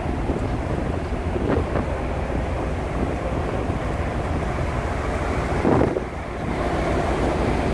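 Wind buffeting the microphone on a ship's open deck at sea, with the rush of the sea alongside the moving ship. One stronger gust comes just before six seconds in, followed by a short lull.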